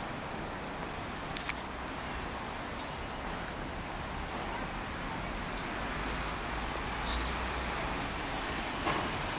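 Steady background hum of distant city road traffic, an even low rumble that swells slightly in the middle. A single sharp click sounds about a second and a half in.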